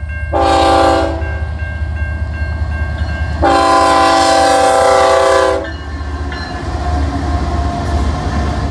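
Canadian National freight train's diesel locomotives sounding the horn for a grade crossing: a short blast, then a longer one a few seconds later, over the steady low rumble of the engines. A crossing bell rings faintly underneath.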